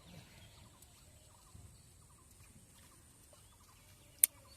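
Faint outdoor birdsong of short repeated chirps, with one sharp click a little past four seconds in.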